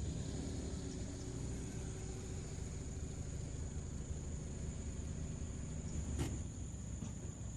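Outdoor ambient noise: a steady low rumble with a thin, steady high-pitched tone over it, and a single click about six seconds in.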